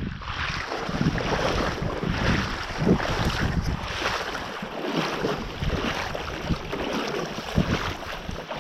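Steady rush of river water around a drift boat, with wind buffeting the microphone.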